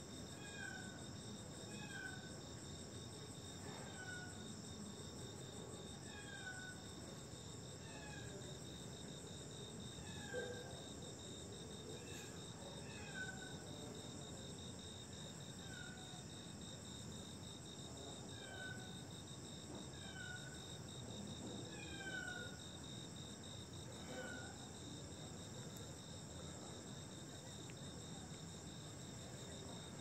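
Night-time cricket chorus trilling steadily. A short call falling in pitch repeats every one to two seconds over it, then stops about three-quarters of the way through.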